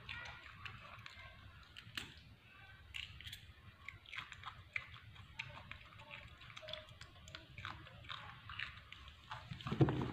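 Baby macaque biting and chewing a raw cucumber, with many small crisp crunches. A heavier thump comes near the end.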